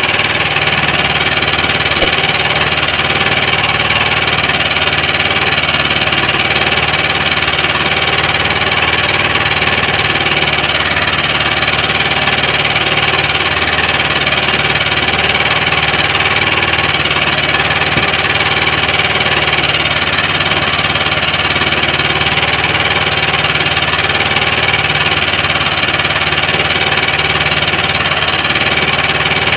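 Engine idling, an even drone that holds steady without changing pitch or level.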